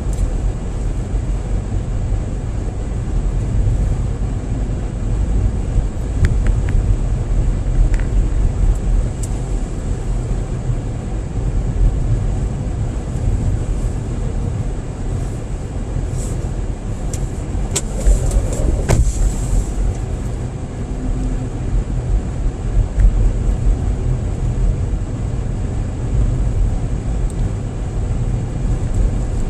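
Car driving on a cleared, salted winter road, heard from inside the car: a steady low rumble of engine and tyre noise, with a short run of clicks and knocks a little past halfway.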